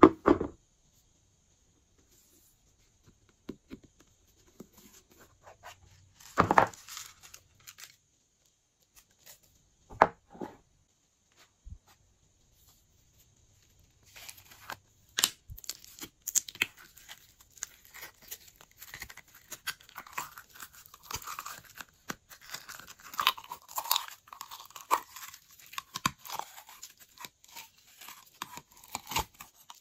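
Glossy slime being mixed and squished, making sticky clicks and crackles. There are a few separate squelches in the first half, then a dense stream of crackling from about halfway.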